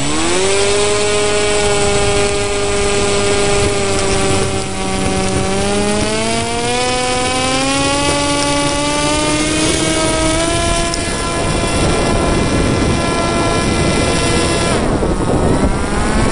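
Ranger EX RC plane's electric motor and propeller whining, throttled up right at the start, then holding steady before rising gradually in pitch. Near the end the pitch drops sharply and climbs back up as the throttle is cut and reopened.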